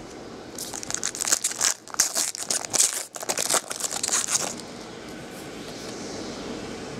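Plastic-foil wrapper of a trading card pack being torn open and crinkled by hand, a dense crinkling from about half a second in until about four and a half seconds, then quieter handling.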